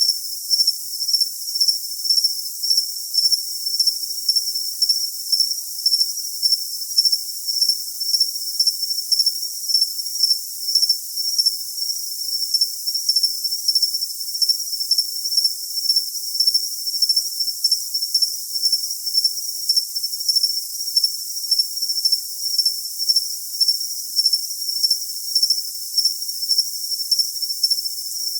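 Cricket chirping in an even, unbroken rhythm, about two high-pitched chirps a second, over a steady high hiss, with no low sounds at all.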